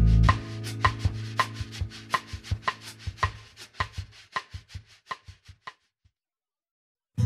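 Background music thinning to its last bars: the bass drops out early, leaving a light percussion tick at about four beats a second that fades away, then silence. A new guitar track starts right at the end.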